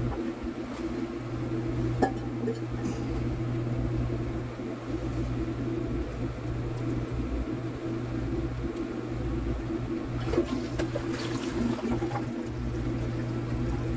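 Water running in a toilet over a steady low hum, with a few light clicks and knocks.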